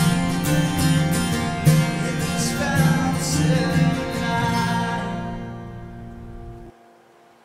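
Acoustic guitar strummed to the end of a song, then a final chord left to ring and fade away. Its low end cuts off abruptly near the end, leaving only a faint tail.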